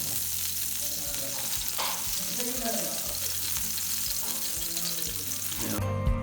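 Cooking oil sizzling on a hot dosa griddle, a steady hiss. Background music comes in near the end.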